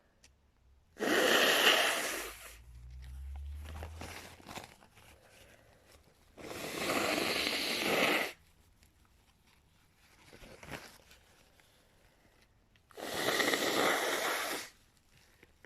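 A person blowing their nose hard three times. Each blow is a loud, noisy blast lasting one and a half to two seconds, with quieter snuffling sounds between.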